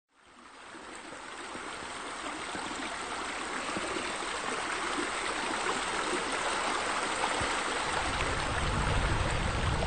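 Running water, a steady splashing stream sound matching the pool's bubbler fountains and water features, fading in over about the first second. A low rumble joins about eight seconds in.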